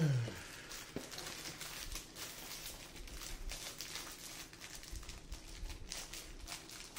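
Snack wrapper being handled and pulled open, crinkling irregularly with scattered small crackles.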